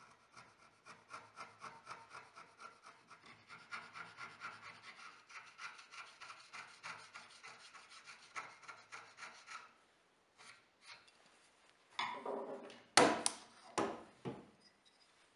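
Steel chisel paring wood in quick, repeated short scraping strokes, several a second. These stop at about ten seconds. Near the end come a few louder sharp knocks of wood on the bench.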